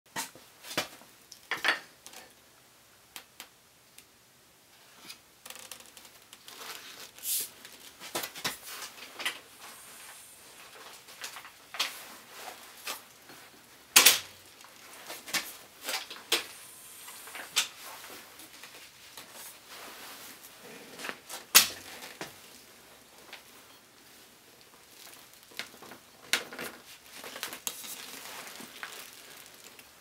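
Irregular clicks, knocks and clinks of a bicycle and tools being handled in a workstand, with two sharp knocks much louder than the rest.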